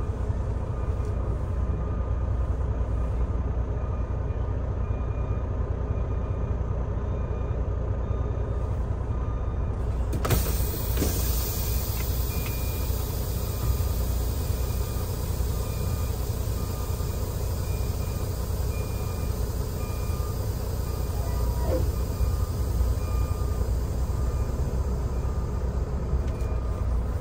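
Semi-truck's diesel engine running steadily, heard from inside the cab as the truck pulls away, with a low rumble throughout and one sharp click about ten seconds in.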